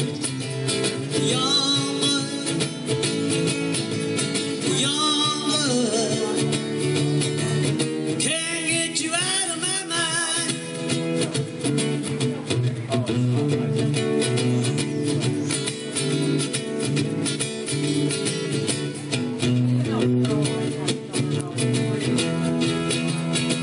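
Acoustic guitar strummed in a steady rhythm through an instrumental break of a live song, with a wavering melody line over it during the first ten seconds or so.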